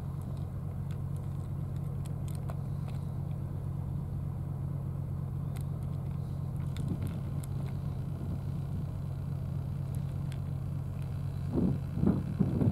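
Steady low hum of an engine running at idle, with faint scattered clicks of cats eating from plastic trays. A few louder bumps come near the end.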